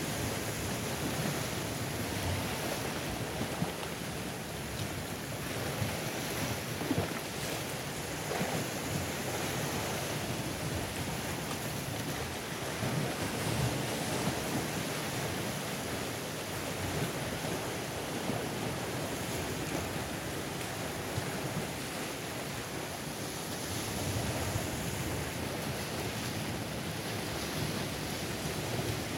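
Sea surf washing in and breaking over rocks: a steady rushing wash that swells and eases, with a few brief louder splashes.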